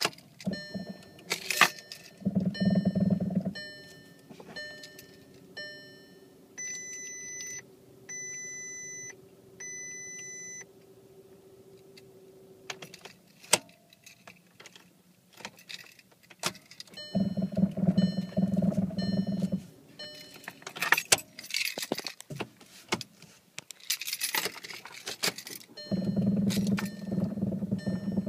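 2011 Volkswagen Tiguan heard from inside the cabin: the instrument cluster gives a run of short warning chimes, about one a second, then three longer beeps. In three bursts of two to three seconds the wheel shakes from the failing power steering, buzzing and jangling the keys in the ignition.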